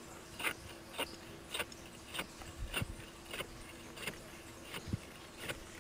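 Hand ice saw cutting through sea ice: a steady rhythm of short crunching strokes, a little under two a second.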